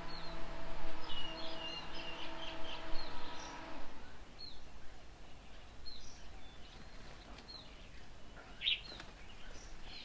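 Several small birds chirping and calling in short, high notes, with one louder call near the end. Under them, a steady low hum stops about four seconds in.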